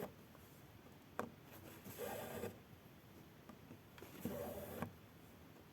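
Faint, two short zipping rasps, like embroidery thread drawn through fabric, about two and four seconds in, with a light click about a second in.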